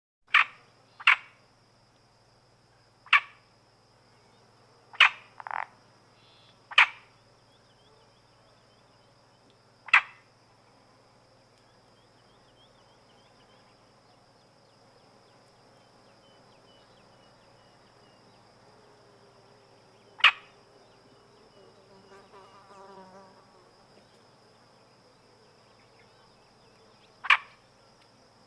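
Marsh ambience: frogs give short, loud single croaks at irregular intervals, several in the first ten seconds and then two more, over a faint steady insect buzz. About two-thirds of the way through, a fly buzzes closer for about a second.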